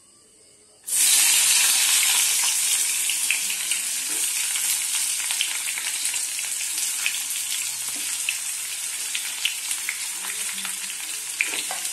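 Sliced onions hitting hot mustard oil in a steel kadai: about a second in, a sudden loud sizzle breaks out and keeps going with fine crackling, easing off slightly as the onions start to fry.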